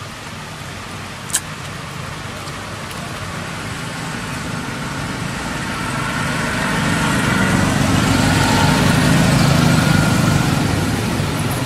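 A motor vehicle's engine rumble grows louder over several seconds and eases off near the end, over a steady hiss of light rain. A single sharp click comes about a second and a half in.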